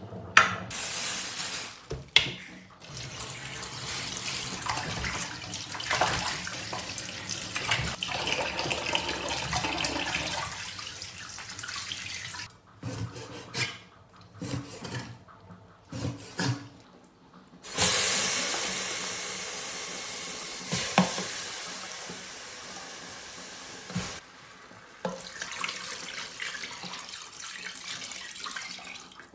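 Tap water running into a stainless-steel kitchen sink while pickled cabbage is rinsed and squeezed by hand, then a cleaver chopping pork ribs on a wooden board in separate sharp strokes with pauses between, then water running again and being poured over the ribs in an electric pressure cooker.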